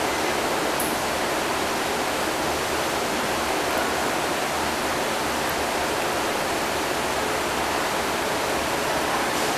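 Steady rushing hiss of aquarium aeration and water flow, with air bubbling through the tank.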